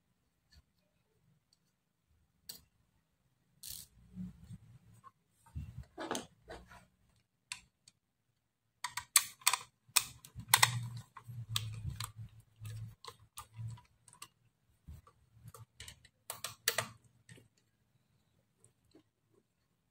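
Small Phillips screwdriver turning the screws out of a sound card's case, with the case handled in the hands: scattered small clicks, ticks and scrapes, thickest in the middle stretch.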